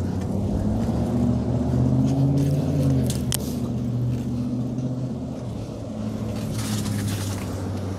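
A motor vehicle's engine running close by, a low pitched hum that rises slightly, dips about three seconds in, then holds steady and stops abruptly at the end. A single sharp click sounds a little before halfway, and a short hiss comes near the end.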